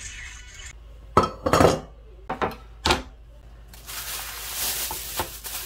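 Kitchenware clattering in several sharp knocks, followed by the steady crinkling of a thin plastic bag being handled around a slab of raw pork.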